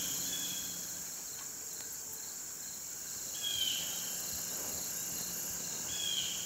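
Steady high-pitched chorus of insects in a summer field, with two short high chirps, one about three and a half seconds in and one near the end.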